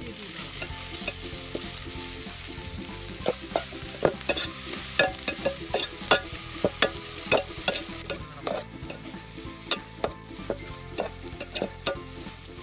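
Sliced onions, green chillies and curry leaves sizzling in hot coconut oil in a metal pot while a metal spatula stirs them, scraping and clinking against the pot. From about three seconds in, the clinks come quickly, two or three a second.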